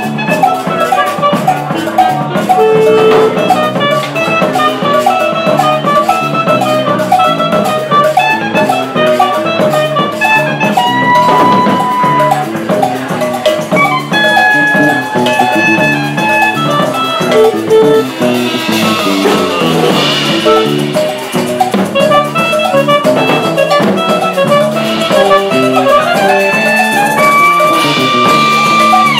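Live band playing a Brazilian-style tune: a clarinet plays a lead melody with long held notes over drum kit and electric bass.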